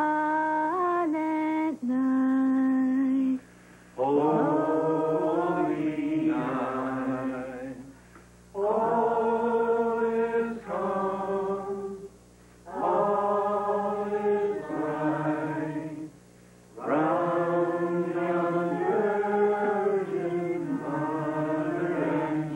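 A group of people singing a song together, in long held phrases with short pauses between them.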